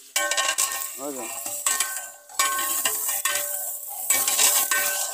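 A long metal ladle scrapes and knocks repeatedly against the inside of a large aluminium deg, and the pot rings with each stroke. Under it runs a steady sizzle of chicken frying.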